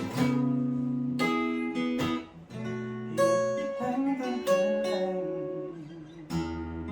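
Acoustic guitar playing an instrumental passage: chords strummed about once a second and left to ring out between strokes.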